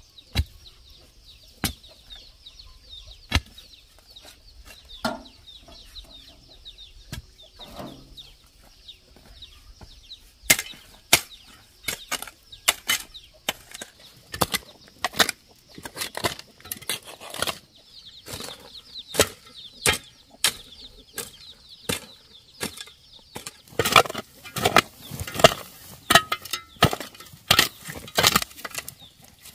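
A hand hoe chopping into soil and dragging loose earth out of a trench: single strikes every second or two at first, then quicker strokes from about a third of the way in, several a second near the end.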